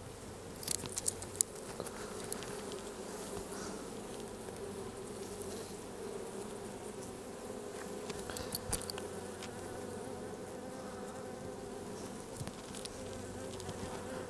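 Honeybees humming steadily over an open hive full of frames. A few sharp clicks and knocks about a second in and again about two-thirds through, as the wooden frames are worked loose by a gloved hand without a hive tool.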